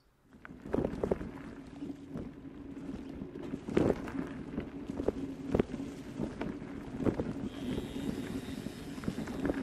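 A vehicle travelling over a rough narrow track: a steady engine hum with low rumble, irregular knocks and rattles from bumps, and wind on the microphone.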